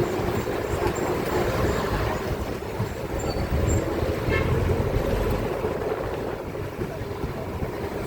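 Busy city street traffic: vehicles running past, with car horns tooting, including a short toot about four seconds in.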